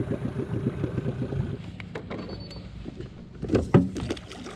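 Boat motor running with a steady pulsing hum that cuts out about a second and a half in, followed by scattered knocks and clunks on the boat, the loudest pair near the end.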